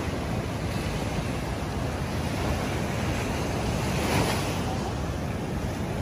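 Surf breaking and washing up a sandy beach, with wind buffeting the microphone; one wave swells louder about four seconds in.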